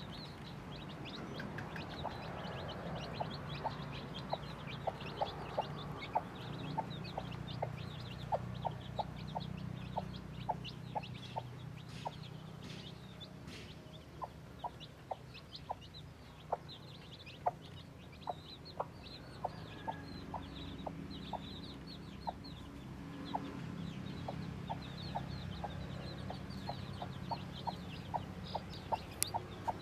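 Mother hen clucking in a steady run of short clucks, about two a second, pausing briefly midway, while her chicks peep high and fast around her.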